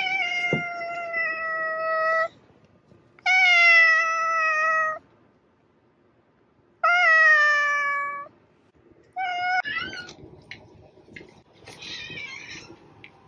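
Domestic cats meowing: three long, drawn-out meows, each about one and a half to two seconds and falling slightly in pitch, then a short meow and rougher, scratchier calls near the end.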